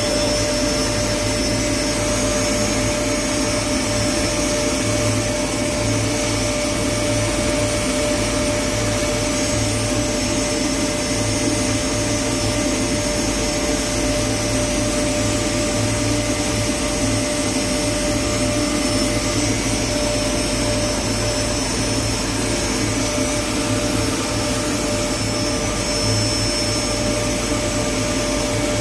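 CWF ultrafine powder grinder, an air-classifying mill with a suction conveying fan, running steadily under load while it grinds material to powder. It gives a loud, constant hum and rush of air with a steady tone that does not change.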